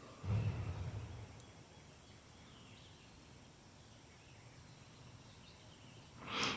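Faint background with a thin, steady high-pitched whine throughout, and a brief low rustle about half a second in.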